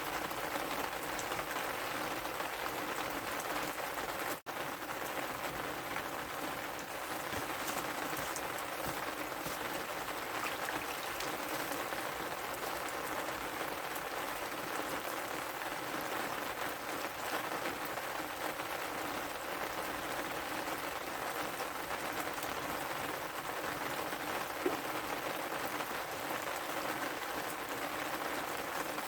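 Steady rain falling, an even hiss that cuts out for an instant about four and a half seconds in.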